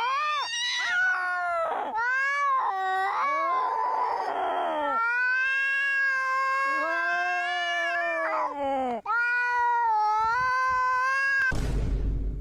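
A cat yowling in a string of long, drawn-out calls that bend up and down in pitch, with a breathy hiss-like stretch about four seconds in. A short rough burst of noise comes near the end.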